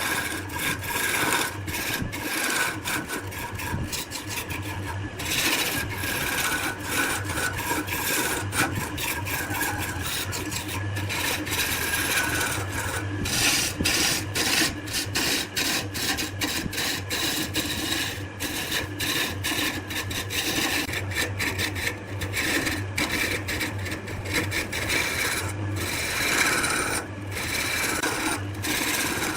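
Wood turning on a lathe with a cutting tool scraping against the spinning piece: a continuous rasping noise over a low, steady motor hum, broken by frequent brief gaps.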